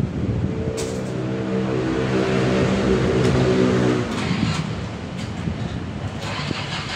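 A motor engine runs steadily for about three seconds, swelling slightly, then fades out about four seconds in. Sharp metallic clicks of a wrench on the engine's valve gear come every second or so.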